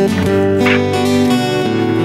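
Acoustic guitar music, a run of held notes that change pitch.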